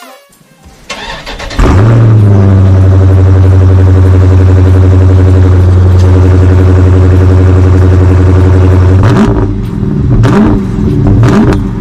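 Dodge Charger Daytona 392's 6.4-litre HEMI V8 cranks and fires about a second and a half in, settling into a loud, steady idle. From about nine seconds in it is revved in a few short blips that rise and fall.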